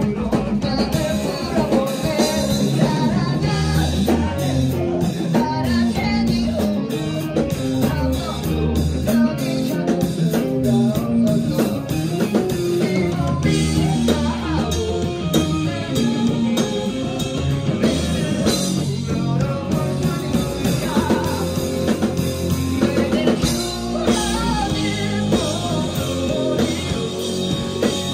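Live rock band playing: a singer's vocals over distorted electric guitar, electric bass and a drum kit.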